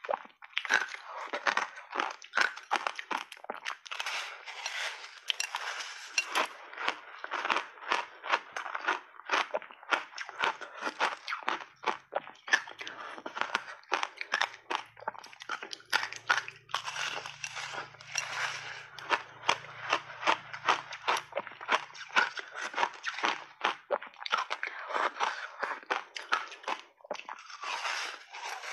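Close-miked crunching of soft, powdery white block ice dipped in passionfruit pulp as it is bitten and chewed: quick runs of sharp, brittle crunches, several a second.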